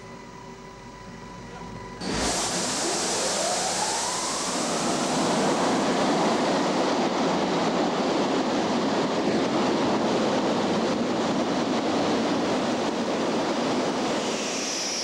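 A steady hum with a few steady tones, then about two seconds in a sudden rush of air and a whine that rises over a few seconds as a Northrop NF-5's J85 turbojet spools up on start. The jet then runs steadily at a loud level, and a high whine sets in near the end.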